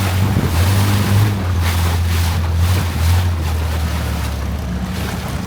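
Longtail boat engine running steadily with a deep hum, under a hiss of wind and water noise.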